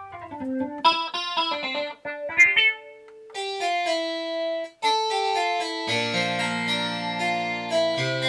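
Roland AX-Edge keytar being played through a plucked-string patch. It plays a single-note melody with quick runs, then from about six seconds full chords over sustained low bass notes.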